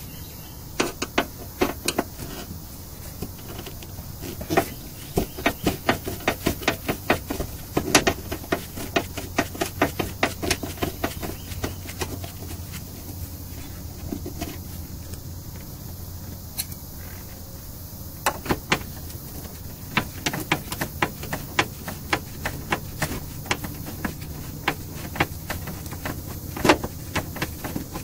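Screwdriver turning out the screws that clamp the window glass to the regulator bracket, with runs of quick metallic clicks coming and going throughout.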